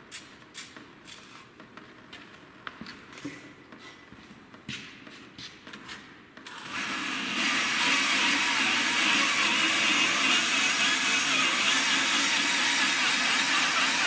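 A few light clicks of a spray bottle trigger and handling, then about six and a half seconds in a cordless drill starts spinning an adjustable stone hone inside a steel hydraulic cylinder bore wet with honing oil. It makes a steady whirring scrape of stones on steel that cuts off suddenly near the end.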